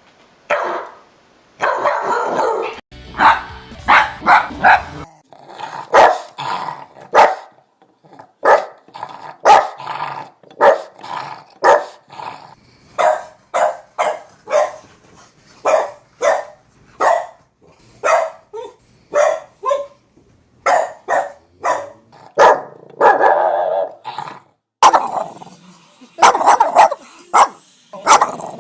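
Dog barking repeatedly: a long series of short, loud barks, often about two a second, with a few longer runs of barking near the start and near the end.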